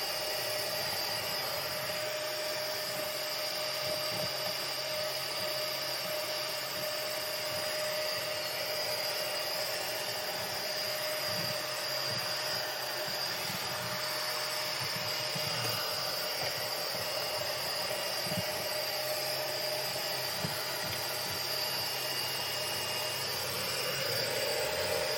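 iRobot Roomba Combo 2 Essential robot vacuum running: a steady suction-fan rush with a constant motor whine, and a few faint low knocks as it cleans.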